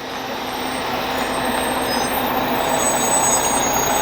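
Large vehicle, such as a truck, running steadily and slowly growing louder.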